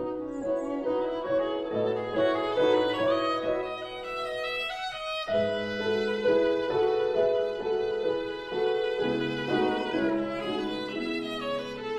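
Background music: a violin melody over held lower notes, moving from note to note at a slow pace.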